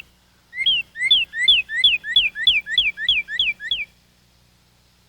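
A songbird singing a fast series of about ten whistled two-part notes, each rising then falling, at about three a second; the song stops about four seconds in.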